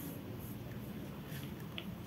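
Faint scratching and dabbing of a thin paintbrush laying gouache onto paper, with a few small ticks, over a low steady room hum.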